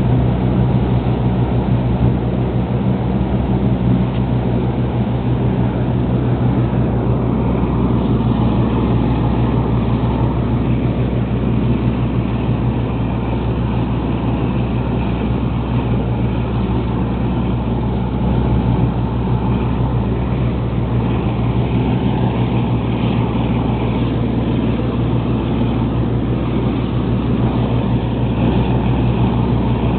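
Lobster boat's inboard diesel engine running steadily at cruising speed, with the constant rush of the wake and wind.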